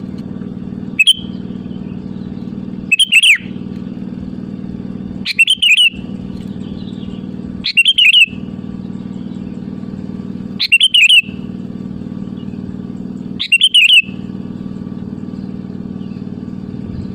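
Sooty-headed bulbul giving short, rapid call phrases, six of them spaced about two to three seconds apart, over a steady low hum.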